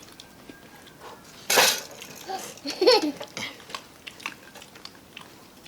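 Plates and cutlery clinking in scattered small clicks, with a sudden loud burst of noise about one and a half seconds in and a child's short high squeal about three seconds in.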